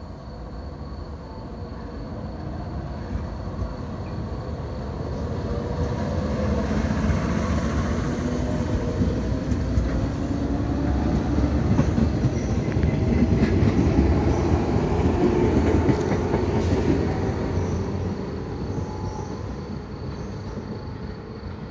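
A two-set JR 115 series electric local train pulling away from a station. The traction motor hum rises in pitch as it accelerates, and the wheels clatter on the rails. It grows loud as the cars pass and fades as the train draws away.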